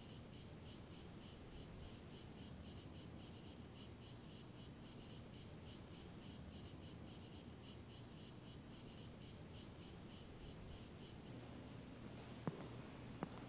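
A cricket chirping steadily, about four chirps a second, until it stops abruptly about eleven seconds in. Near the end there are two faint sharp knocks.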